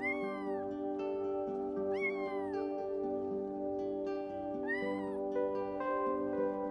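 Very young kitten meowing three times, about two seconds apart, each a high cry that rises then falls in pitch, over soft instrumental background music.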